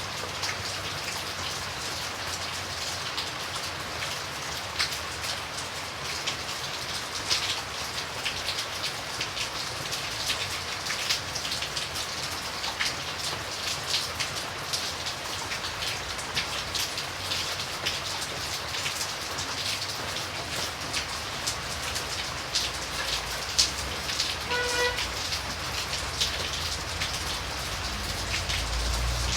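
Steady rain falling, a dense patter of individual drops hitting a surface, with a low rumble rising near the end.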